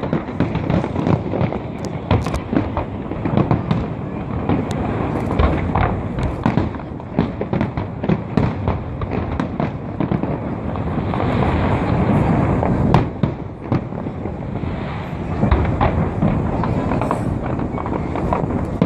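Fireworks display: a dense, unbroken run of shell bursts booming and crackling, with a heavy low rumble.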